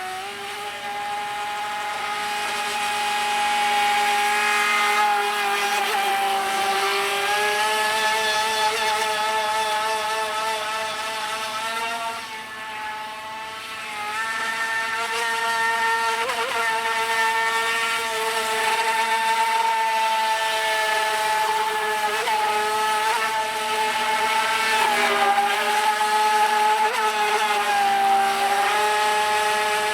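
Brushless electric motor of an FT012 RC speedboat running at speed: a steady high whine that wavers slightly up and down with the throttle, dipping in loudness around the middle before rising again.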